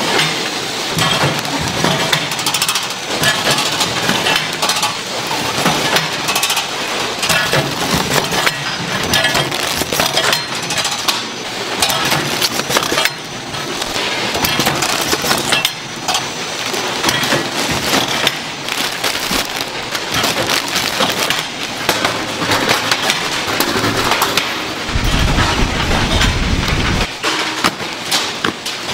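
Instant-ramen packaging machinery clattering: a dense, continuous run of clicks and rattles as wrapped packets are conveyed and boxed. A low rumble joins for about two seconds near the end.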